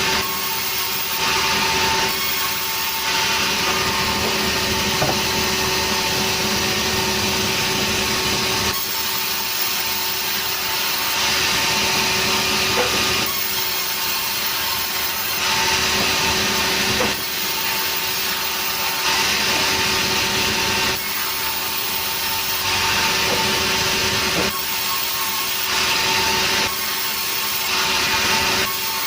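Sawmill saw running and cutting through a log of nering wood: a steady machine hum under a hiss of cutting that swells and drops every few seconds.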